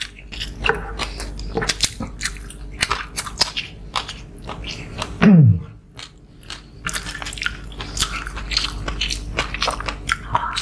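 Close-up mukbang eating: two people chewing and biting food, with many quick, wet mouth clicks and crunches. About five seconds in comes one brief, loud sound that falls steeply in pitch.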